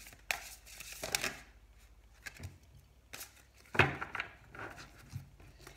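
A deck of tarot cards being shuffled and handled by hand: short papery rustles and card snaps, with a sharper tap about four seconds in.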